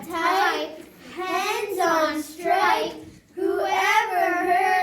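Young children's voices chanting in a high sing-song, in short phrases with brief pauses between.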